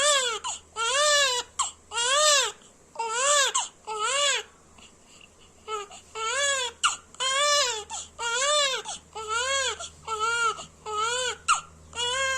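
Baby crying in a run of short wails, about one a second, each rising then falling in pitch, with a pause of about a second roughly a third of the way in.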